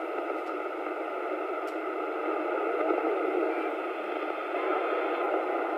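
CB radio receiver on channel 28 giving a steady hiss of static through its speaker, with no station coming through.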